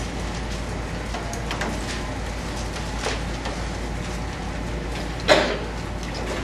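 Bible pages rustling as they are turned to find a passage, a scatter of soft short rustles with one louder rustle about five seconds in, over a steady low hum.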